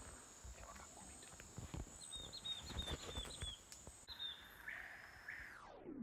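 Rainforest ambience: a steady high insect buzz that cuts off about two-thirds of the way through, with a bird giving a quick run of about eight short chirps in the middle. Near the end a tone slides steeply downward.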